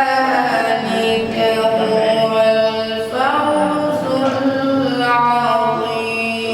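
A man chanting in Arabic in long, drawn-out melodic notes, in the style of Quranic recitation. A second phrase begins about three seconds in.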